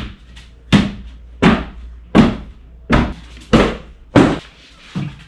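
Open palm slapping down hard on the top panel of an IKEA KALLAX particleboard shelf unit, eight heavy thuds a little under one a second, driving the panel down onto its wooden dowels.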